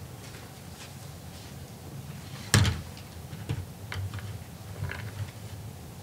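Stiff photo boards being set up on a table: one sharp knock about two and a half seconds in, then a few lighter taps and handling noises.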